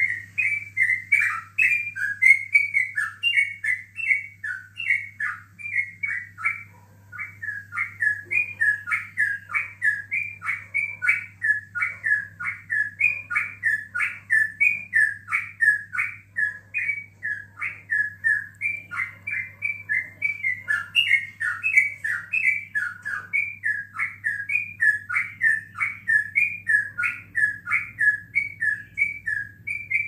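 Yellow-vented bulbul (trucukan) singing a long, unbroken run of quick whistled notes, the continuous 'ropel' song prized in this bird, with one short break about seven seconds in.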